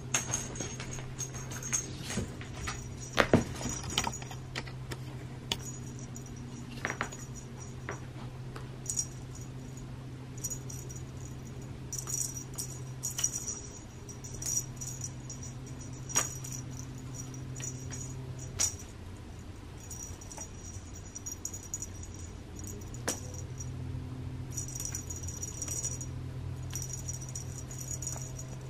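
A cat shifting about on an artificial-grass scratcher under a bristle grooming arch: scattered soft rustles and sharp clicks, the loudest cluster about three seconds in, over a steady low hum.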